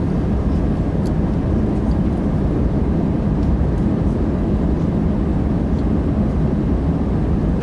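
Passenger airplane cabin in flight: a steady, low rumble of engine and airflow noise, with a few faint small clicks.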